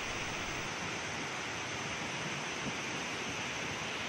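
Steady rush of swollen floodwater pouring over a spillway and through a sluice, an even, unbroken noise of falling water.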